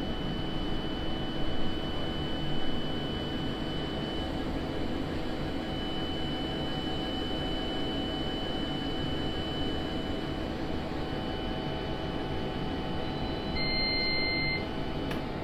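Laser engraver and fume extractor running with a steady whir and a thin high whine that breaks off briefly and stops about ten seconds in. Near the end a single electronic beep sounds as the engraving job finishes.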